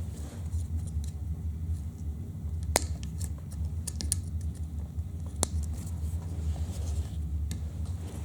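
Light clicks and taps of small parts being handled, with two sharper clicks about three and five and a half seconds in, over a steady low hum.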